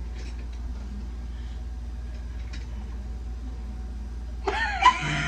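A steady low hum, with a person's voice breaking in loudly near the end, its pitch sliding up and down.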